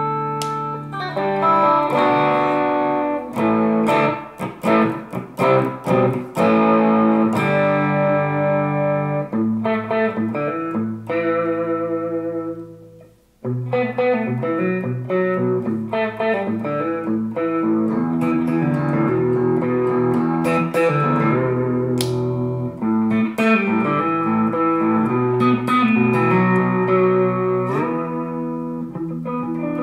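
Squier Sonic Mustang HH electric guitar with twin humbucker pickups played through an amplifier, mixing ringing chords and picked single-note lines. The playing stops briefly a little under halfway through, then picks up again.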